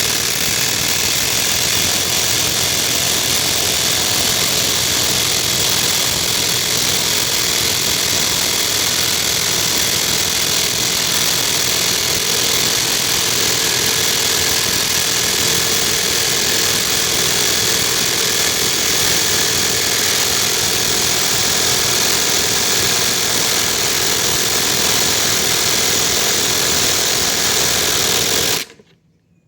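Two cordless impact wrenches, a Makita XWT17 and a Ridgid Octane, hammering together as they drive 5-inch, 1/2-inch lag bolts into hard cedar: a loud, continuous rattle that stops suddenly near the end.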